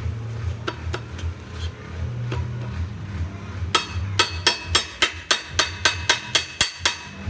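A hammer striking metal: a few light taps, then about halfway through a quick run of about a dozen hard ringing blows, roughly four a second. A steady low engine hum runs underneath.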